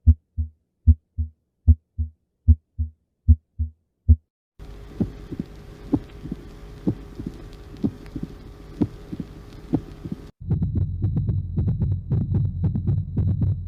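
Recorded heart sounds played in succession. First come clear paired lub-dub beats, about 75 a minute. About a third of the way in a second recording starts, with beats about once a second over a steady hum. About three-quarters of the way in a third recording starts, with a continuous low rumble between dense clicks, typical of a valve-defect heart murmur.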